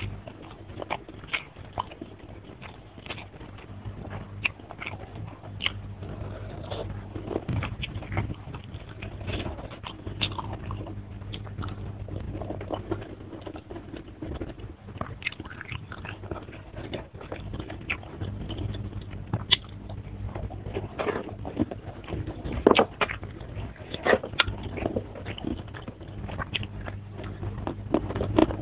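Close-miked chewing and biting of a mouthful of rice, fish and raw green vegetables eaten by hand, with crunches and many sharp, wet mouth clicks, over a steady low hum.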